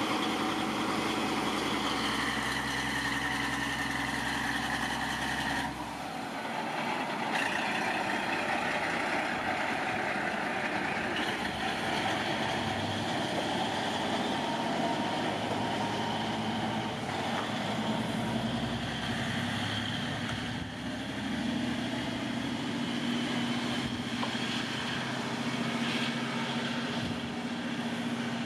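KiHa 40 diesel railcar pulling away from a station, its diesel engine running under power as it moves off down the line. The engine note changes abruptly about six seconds in.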